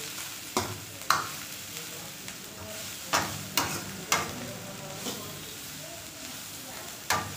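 Shredded cabbage, carrot, capsicum and onion sizzling steadily in hot oil in a wok as a long metal ladle stirs them. Six sharp clacks of the ladle against the pan come in small groups: two, then three, then one near the end.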